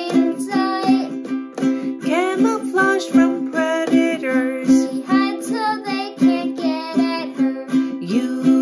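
A ukulele strummed in a steady rhythm, with a woman and a boy singing a children's song over it.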